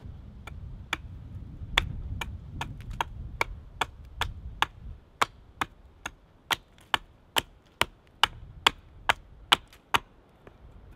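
Small hatchet chopping into the base of a standing sapling: a steady run of sharp wooden strikes, about two and a half a second, stopping shortly before the end. A low rumble sits under the first half.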